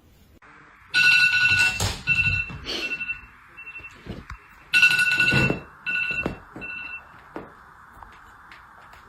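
Electronic beeping like a ringtone, in two bursts: each is a longer high beep followed by two or three short ones, over a faint steady hiss.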